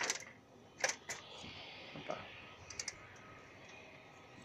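Footsteps going up stairs: a few sharp taps in the first second or so, then a few lighter ones near the three-second mark.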